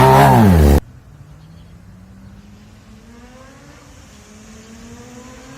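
Yamaha XJ6's 600 cc inline-four engine revved through a full aftermarket sport exhaust. The loud rev rises and falls and cuts off abruptly just under a second in. After that a much fainter engine note slowly rises in pitch.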